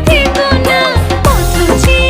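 Background music with a steady bass beat and a gliding melody line.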